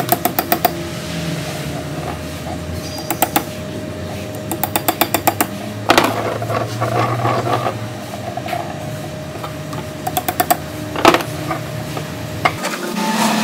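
Quick runs of light clicks, about ten a second, and a couple of single sharper knocks as a homemade steel tool with a ball bearing on its end is handled against a steel block, over steady background music.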